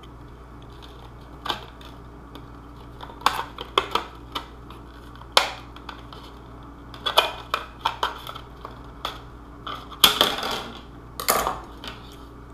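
Handling noise from curved plastic armor pieces: scattered clicks, taps and knocks against a table top, with the loudest, a short scrape and rattle, about ten seconds in.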